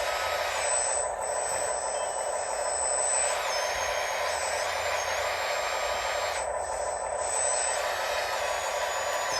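Radio-controlled construction machines working: a steady whirring from their electric motors and hydraulic pumps, with a high thin whine that shifts pitch in small steps as the machines speed up and slow down.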